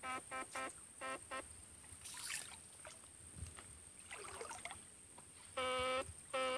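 Electrofishing rig buzzing in short steady-pitched pulses as its current is switched into the water through two poles: five quick blips in the first second and a half, then two longer buzzes near the end. In between, water swishes faintly around the wading legs and poles.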